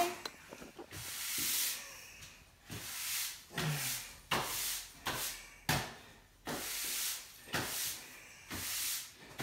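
Push broom sweeping a bare concrete floor: a run of scratchy strokes, about one a second.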